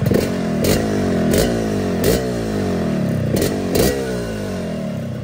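Yamaha RX-King 135 cc two-stroke single revved in about six quick throttle blips through a custom-baffled original full-set exhaust, the revs falling away after each blip. The exhaust has only a mild growl because the bike still runs the standard main jet.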